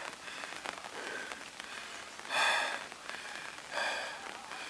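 A hiker's heavy breathing close to the microphone: two loud, puffing exhales about a second and a half apart over a steady hiss.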